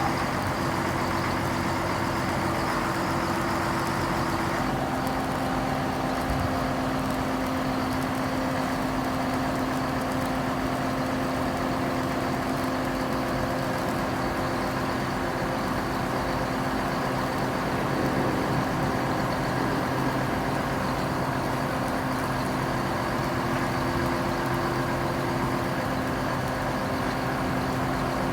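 Large engine idling steadily, a constant hum whose tone shifts slightly about five seconds in.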